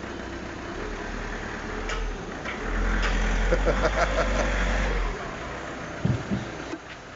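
Diesel car engine idling through a freshly welded DPF exhaust, steady with a louder stretch in the middle; no exhaust blow can be heard, so the repaired flexi pipe is sealing.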